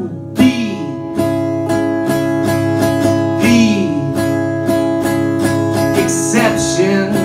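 Acoustic guitar strummed in a steady rhythm, the chords ringing on between strums, played live through a PA between sung lines.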